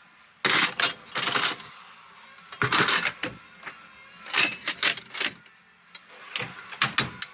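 Metal wrenches clinking and clattering as they are handled in a toolbox drawer, in four short bursts.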